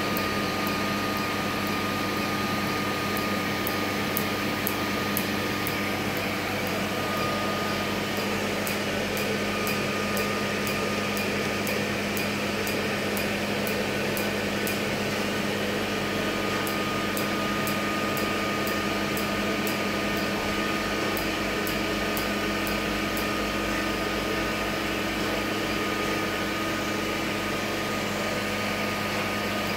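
Steady hum of the Q-switched Nd:YAG laser unit and a cold-air skin chiller, with several steady tones. Short, faint, sharp ticks of the laser pulses firing come a few a second through most of it and thin out near the end.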